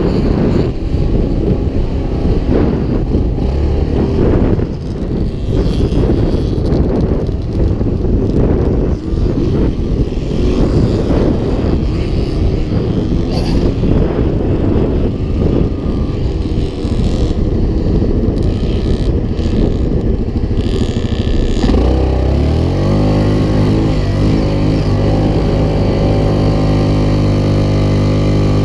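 Quad bike (ATV) engine being ridden, its sound rough and uneven. About three-quarters of the way through it settles into a steady idle.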